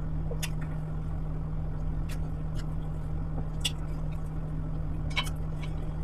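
Close-miked eating sounds: wet mouth clicks and squishes of someone chewing soft wheat swallow and fish soup, with four or five sharp smacks spread through. A steady low hum runs underneath.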